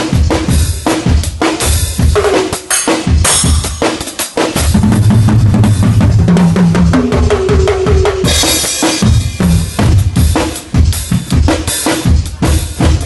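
Acoustic drum kit played fast and busy, with rapid bass drum and snare strikes. A crash cymbal rings out about eight seconds in. A stretch of held low notes sounds in the middle.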